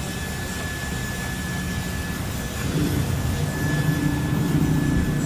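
Steady drone of a running motor or engine that grows louder, with a low hum coming in about two and a half seconds in; a faint high whine runs over it.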